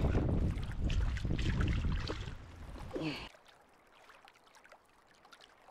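Wind rumbling on the microphone with handling noise and water sounds. It cuts off suddenly about three seconds in, leaving only a faint hiss.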